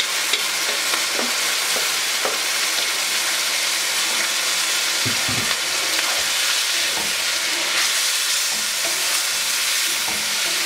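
Chicken pieces sizzling in hot oil in a kadhai as a yogurt marinade is poured in and stirred through with a wooden spatula. The steady frying hiss runs under scattered scrapes and light knocks of the spatula against the pan.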